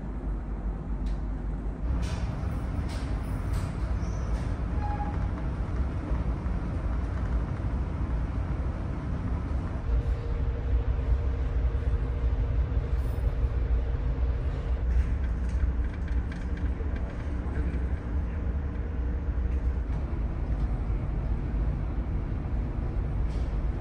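Steady low rumble of a ferry's engines and hull vibration, heard inside the passenger decks while the ship is under way. A few light knocks come about two to four seconds in.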